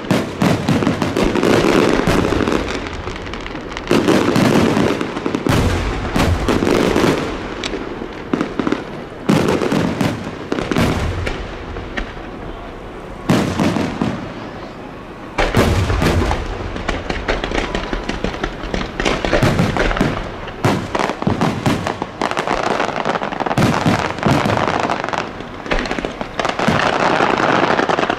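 Aerial fireworks display: shells bursting one after another with sharp bangs and low booms, mixed with crackling. Near the end the bursts run together into a rapid, continuous crackle.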